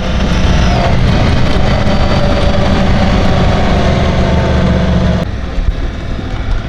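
Snowmobile engine running steadily under throttle, then easing off about five seconds in.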